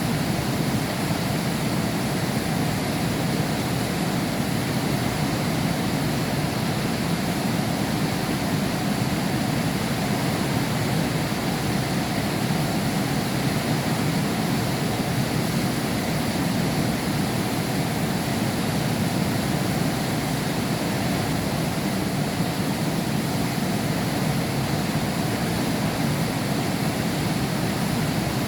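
Heavy rain heard behind window glass: a steady, unbroken rush with most of its weight low down.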